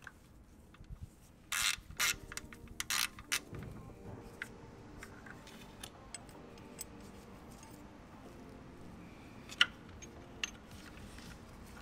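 Ratchet with a 10 mm hex bit clicking and metal clinking while the timing chain guide bolt is loosened and removed. A few quick rattling bursts come about a second and a half to three and a half seconds in, then scattered single clicks.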